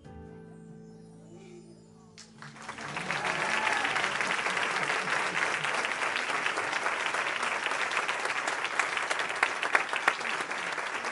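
Music fades out over the first two seconds, then an audience breaks into loud applause, a dense mass of individual claps that carries on to the end.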